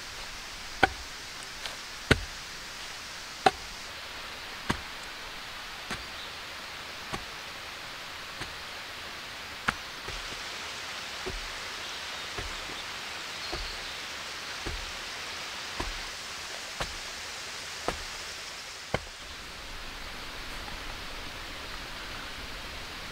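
Sharp knocks repeating at an even pace, about one every second and a bit, over a steady hiss; the knocks stop about 19 seconds in.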